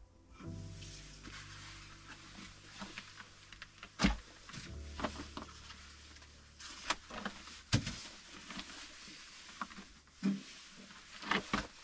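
A wood-burning stove being tended: several sharp knocks and clanks of wood and the stove's metal parts, with smaller crackling ticks from the fire in between, over a faint low steady hum.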